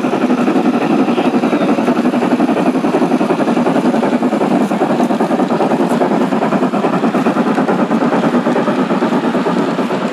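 Large-scale garden railway model steam locomotive and its train of freight cars running past on the track: a loud, steady mechanical running sound that pulses rapidly and evenly.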